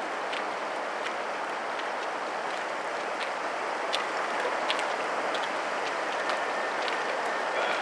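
Freight train of covered grain hopper cars rolling past at a distance: a steady rushing noise with scattered sharp clicks.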